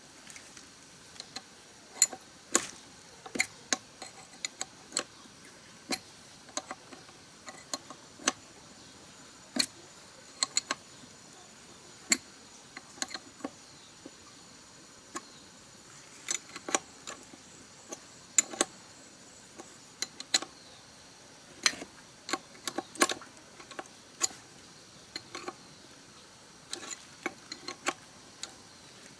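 Irregular sharp metallic clicks and taps of hand tools and parts being handled on a small diesel engine's fittings and oil pipe, coming at uneven intervals.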